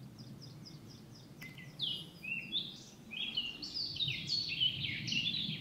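Small forest songbirds chirping and singing: a run of short, high notes, many sliding downward, faint at first and louder from about two seconds in.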